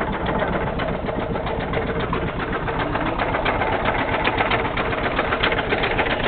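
Boat engine running steadily with a rapid, even beat.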